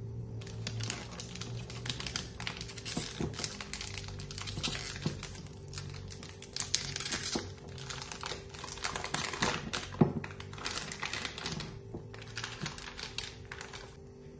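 Plastic piping bag full of batter crinkling and rustling as it is handled and pulled up out of a glass, a busy run of small crackles and clicks.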